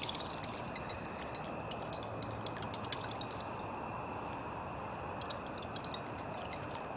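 Steady high trill of night insects, with scattered light clicks and ticks from a buzzbait with a clacker being reeled through water; the clicks come thicker at the start and again near the end.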